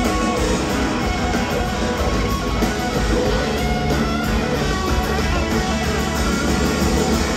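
Live rock band playing an instrumental passage: electric guitars over bass and keyboards, without vocals.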